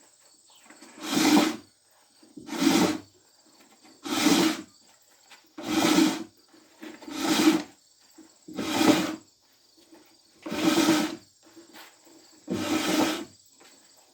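Hydraulic shop crane being hand-pumped: eight rasping, creaking strokes of the pump handle, one about every second and a half, as the boom raises the pulley.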